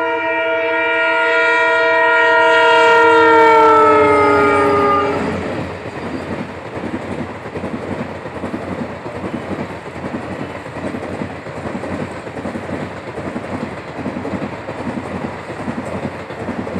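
Indian diesel locomotive sounding a long horn blast as it passes, the pitch sagging slightly before it stops about five seconds in. Then its passenger coaches run by with a steady rhythmic clatter of wheels over the rail joints.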